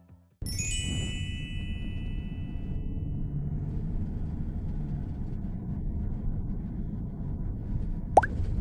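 A bright chime rings out and fades over about three seconds over a steady low rumbling background. Near the end, a single short whistle sweeps sharply upward.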